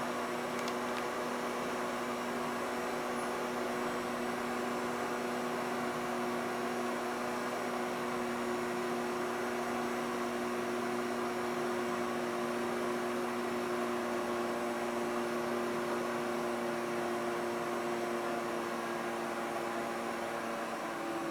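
Robot vacuum cleaner running: a steady whir, with a hum of several held tones over the hiss of its airflow.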